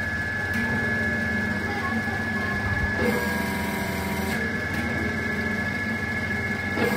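Electric motor and hydraulic pump of a 10-ton hydraulic press's power pack running steadily, a continuous whine over a low hum. The tone shifts slightly about three seconds in, again a little later and near the end, as the control valve lever is worked.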